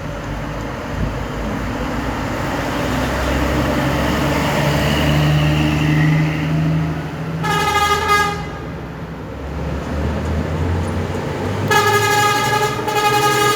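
Buses passing with their engines running, then a bus horn sounding twice: a short blast of under a second about halfway through, and a longer blast of about two seconds near the end.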